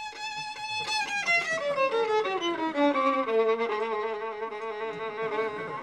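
Violin playing with vibrato: a held high note, then a run of notes falling step by step from about a second in, settling into lower, sustained notes near the end.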